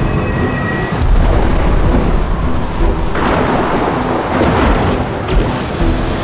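Thunderstorm sound effect: heavy rain with rumbling thunder. The storm noise swells about three seconds in.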